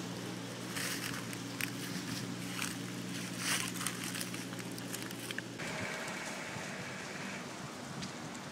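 Irregular crackling and rustling over a low steady hum, stopping about two-thirds of the way through. After that comes a quieter, even background with a faint high steady tone.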